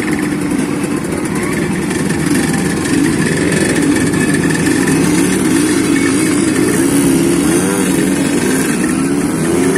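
Several Suzuki RGS VX two-stroke underbone motorcycles running and revving together as they pull away one after another. Their engine notes overlap, each rising and falling in pitch.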